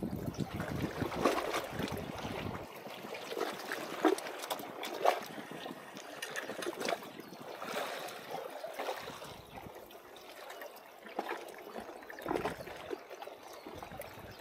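Seawater washing and trickling among concrete breakwater blocks, with scattered small clicks and taps throughout. A low rumble sits under it for the first two and a half seconds, then stops.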